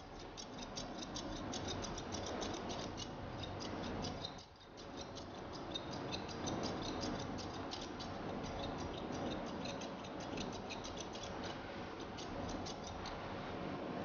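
Grooming scissors trimming the hair on a miniature poodle's muzzle: a quick, steady run of snips, with a brief pause about four and a half seconds in.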